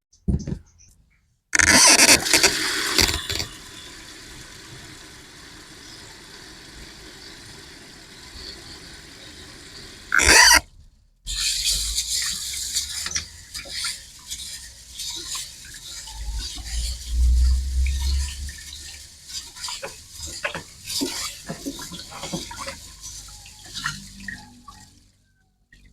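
Water running from a tap, with a steady rush for several seconds, followed by irregular clatter and knocks of things being handled; the sound changes abruptly several times.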